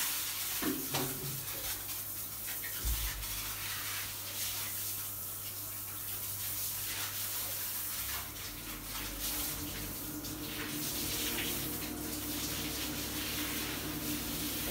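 Handheld shower head running, spraying water onto a dog's coat and the shower floor as the dog is rinsed. A steady low hum runs beneath it.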